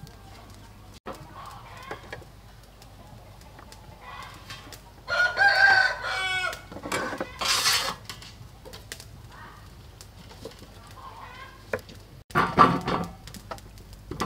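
A rooster crows loudly about five seconds in, and further loud chicken calls follow near eight seconds and near the end, over faint taps of food and utensils being handled.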